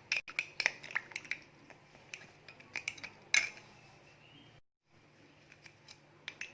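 A spoon stirring in a glass of hot water, clinking against the glass as palm sugar and tamarind are dissolved. Quick clinks come in the first second or so, then they grow sparse and faint, with a brief gap just past the middle.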